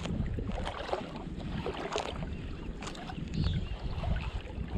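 Shallow water lapping and sloshing around a wading angler's body, with small irregular splashes and wind rumbling on the microphone.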